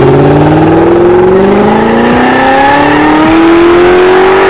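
An engine revving, its pitch climbing slowly and smoothly.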